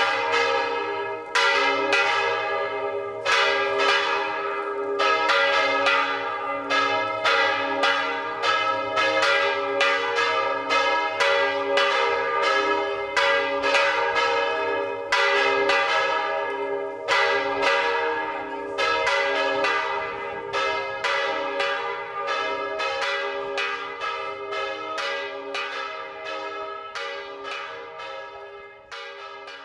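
Church bells ringing, struck rapidly about twice a second with the tones ringing on between strikes; the ringing slows, quietens over the last several seconds and dies away at the end.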